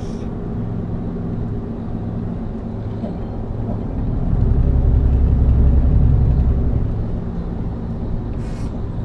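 Steady road and engine noise inside a moving pickup truck's cab, with a low rumble that swells for a few seconds in the middle.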